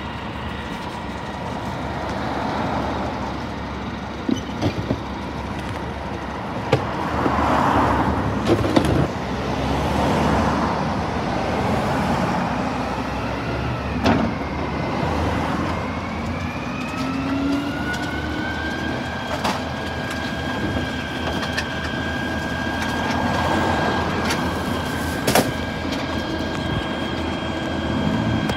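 Scania P320 refuse truck running at the kerb, with scattered sharp knocks and clatter as wheelie bins are handled at its rear bin lift. About halfway through, a rising whine settles into a steady higher tone as the truck works its lifting and compacting gear.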